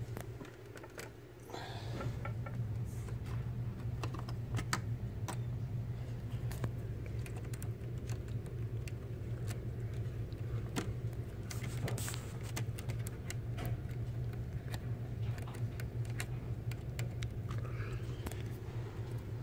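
Scattered small plastic clicks and taps as an HP laptop's motherboard is seated in its plastic base and its ribbon-cable connectors and plugs are fitted by hand, over a steady low hum.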